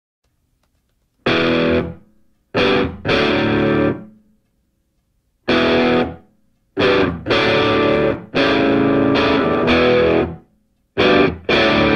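Intro music: distorted electric guitar playing chords in short stop-start hits, with brief silent gaps between them.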